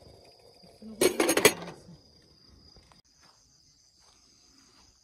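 Tea things clattering: a quick run of metal and glass clinks, loudest about a second in and over within a second. Behind it runs a steady high chirring of crickets.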